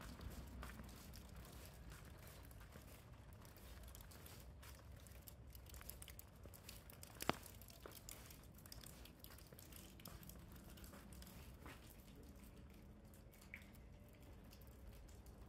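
Near silence: faint background rumble with scattered small clicks and crackles, and one sharper click about seven seconds in.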